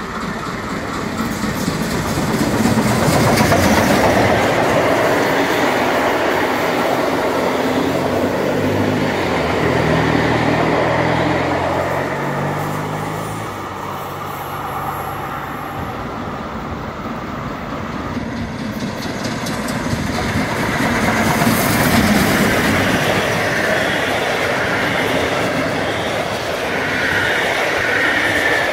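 Steam-hauled passenger train of the DB class 23 locomotive and its vintage coaches passing by, the wheels clattering over the rail joints; the noise swells twice as the train goes past.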